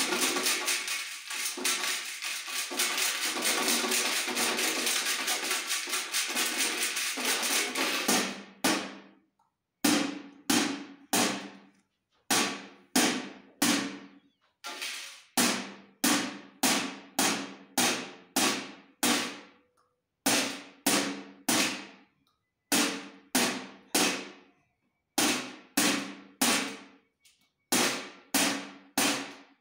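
A handheld round metal tin struck by hand like a drum. For about eight seconds it is hit in a fast continuous roll, then in single hits one or two a second. Each hit rings briefly and dies away.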